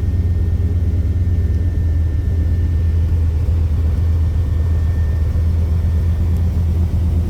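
Chevrolet 383 stroker small-block V8 idling steadily through long-tube headers and dual exhaust, a low, even rumble.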